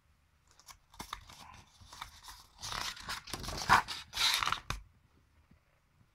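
A page of a picture book being turned by hand: paper rustling and sliding, with a few small clicks at first and the loudest rustles from about two and a half to nearly five seconds in.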